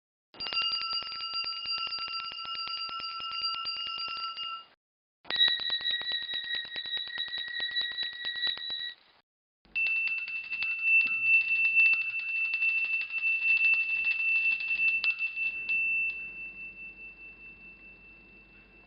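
Small bells rung rapidly in three separate clips, each a fast trembling ring at its own pitch. The last clip rings longest and fades out over its final few seconds.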